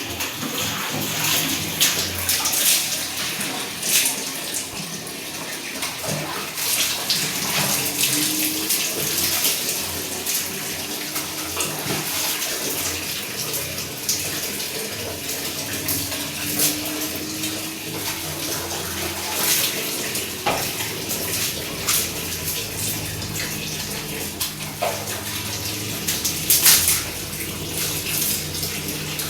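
Water running and splashing during washing, with many short sharp splashes and knocks.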